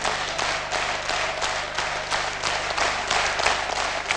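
A large audience applauding. The clapping has fallen into a steady rhythm of about three claps a second.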